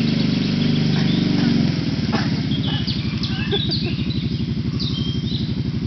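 Quad bike (ATV) engine running at low speed through mud, louder for the first couple of seconds and then settling to a steady lower running note. Birds chirp briefly in the middle.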